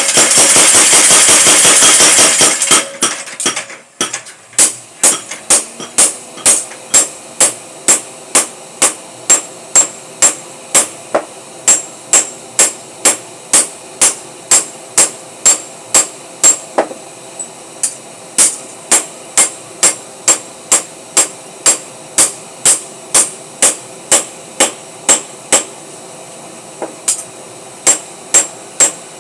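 Power hammer forging: a burst of very rapid, continuous blows for the first few seconds, then it settles into evenly spaced single strikes, about two a second, each with a metallic ring.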